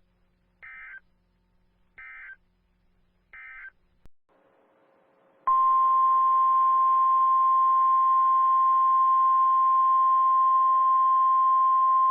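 Three short electronic data bursts of a NOAA Weather Radio SAME header, about a second and a half apart. About two seconds after the last burst, the loud, steady weather-radio warning alarm tone starts over hiss: the opening of a NOAA Weather Radio weekly test.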